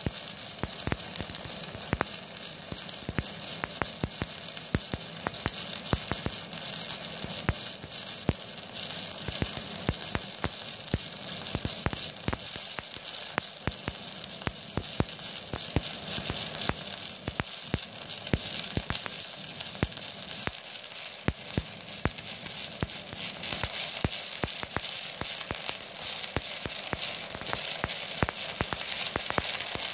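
Stick (MMA) welding arc burning a 4 mm LB-52U low-hydrogen electrode at about 157 A from an IGBT inverter welder. It gives a steady crackling sizzle with frequent sharp pops as the arc runs without a break.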